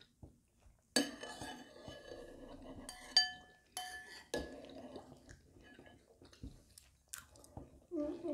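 Metal spoons clinking and scraping against ceramic bowls of porridge, with chewing and mouth sounds. A few sharp ringing clinks come close together about three to four seconds in, and a hummed voice starts near the end.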